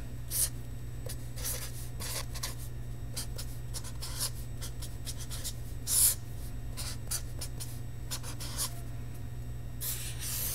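A felt-tip marker writing by hand on a white sheet: a series of short separate strokes as figures and an underline are drawn, with longer strokes about six seconds in and near the end.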